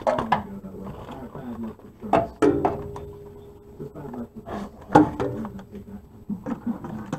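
Metal clinks and knocks of a ratchet and socket being handled and fitted onto a starter mounting bolt, with a few sharp knocks about two seconds in and the loudest about five seconds in.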